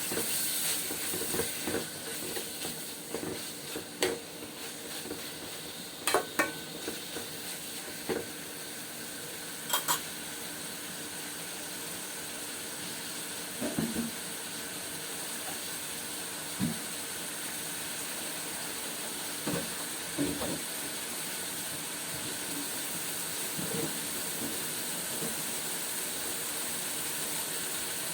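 Pork belly sizzling as it fries in oil in a pan, with a utensil knocking and scraping against the pan now and then, more often in the first ten seconds.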